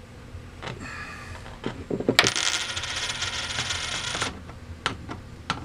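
A coin drops and rattles with a metallic ring for about two seconds before settling, with a few small clicks of metal tools on the mechanism before and after.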